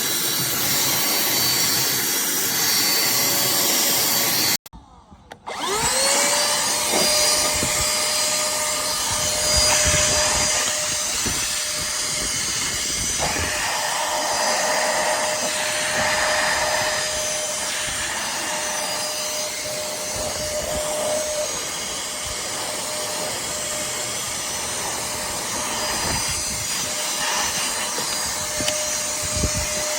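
Cordless handheld vacuum cleaner (pemacom 10KPa) running. About four and a half seconds in it cuts out briefly, then starts again and spins up to a steady whine.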